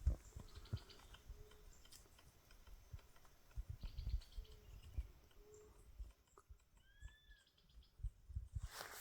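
Footsteps on a forest trail, soft irregular thumps, with birds calling: short high chirping trills, a few short low notes, and two arching whistled calls about seven seconds in.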